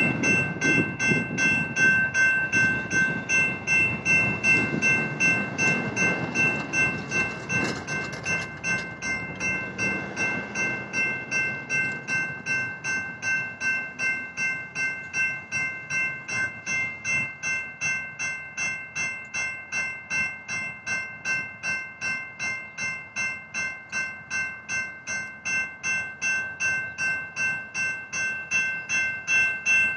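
General Signals Type 2 electronic railroad-crossing bells ringing in an activated crossing, giving a fast, even run of metallic dings. A low rumble fades out over roughly the first ten seconds.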